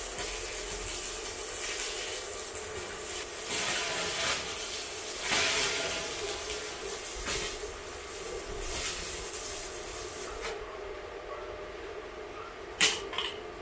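Stick-welding arc from a portable inverter welder crackling and sizzling as the rod burns, stopping about ten seconds in. A single sharp knock comes near the end.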